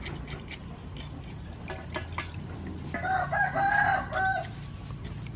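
A rooster crows once, about three seconds in: a call of several linked notes lasting about a second and a half. Under it are short scraping clicks from a knife scraping the scales off a snakehead fish.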